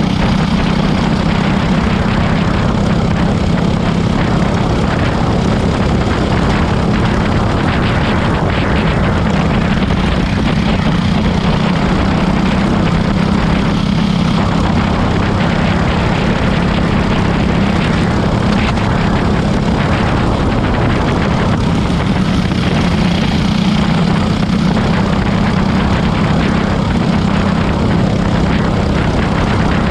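Cage go-kart engine running flat out at a steady drone, heard onboard close to the engine, with little change in pitch.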